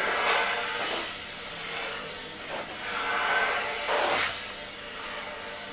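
A smaller hand stone ground over a large lithographic limestone slab in a wet slurry of 180 silicon carbide grit: a gritty scraping hiss that swells and fades with each stroke of the graining.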